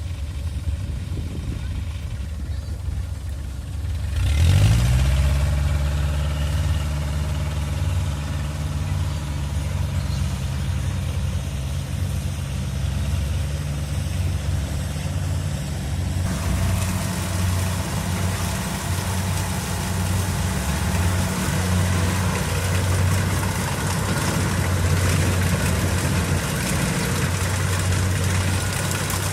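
Diesel engine of a Kubota DC70 combine harvester running, revving up about four seconds in and then holding steady at the higher speed; from about halfway through a broader mechanical clatter joins the engine.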